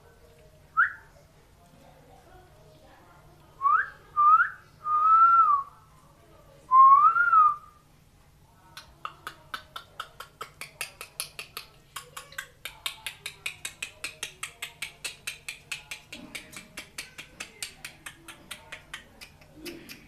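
Five short whistles: brief rising glides, then two longer warbling notes. They are followed by a long, regular run of sharp clicks, a few a second, near cockatiels in a cage.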